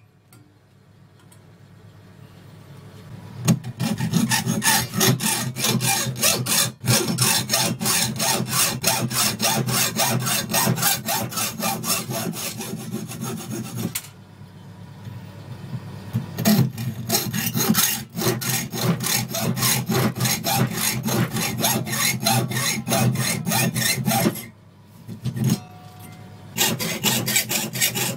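Hand hacksaw cutting through a piece of old circular saw blade steel clamped in a vise, in steady back-and-forth strokes. The sawing starts a few seconds in and breaks off briefly twice, around the middle and shortly before the end.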